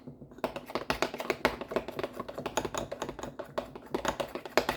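A spoon stirring thick peanut-butter and Greek-yogurt pudding in a bowl: a quick, uneven run of small clicks and taps as the spoon knocks and scrapes against the bowl.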